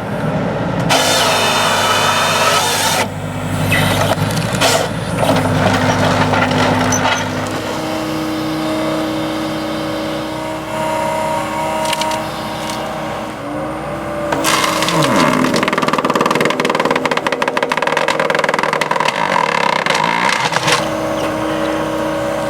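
A machine engine running, revving at times, with a drop in pitch about two-thirds of the way through and noisy, rattling passages.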